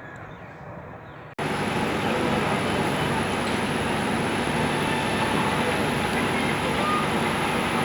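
Faint outdoor ambience, cut off abruptly about a second and a half in by the steady, louder rumble and hiss of a train running along the track.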